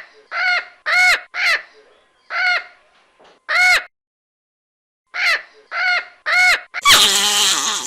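Parrot squawking: about ten short, harsh, repeated calls in two bursts with a pause of over a second between them. Near the end a louder, rougher sound cuts in.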